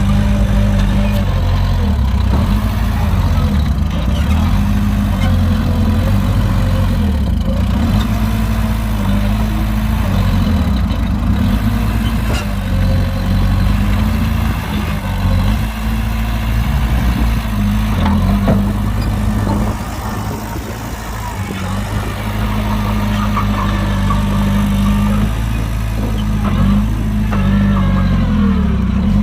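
Heavy diesel engine of a dump truck or bulldozer working in mud, running loudly and steadily, its pitch stepping up and down as the throttle changes.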